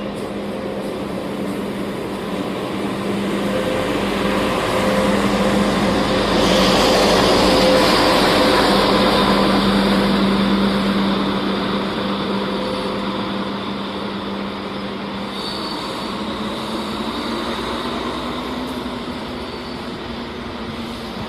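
Diesel train passing: the engine drone and rolling wheel noise swell to a peak about seven to ten seconds in, then fade slowly.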